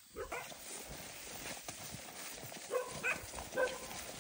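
Footsteps in rubber boots along a wet, grassy path, with grass and leaves rustling against the legs. Three short, high calls from an animal come about three seconds in.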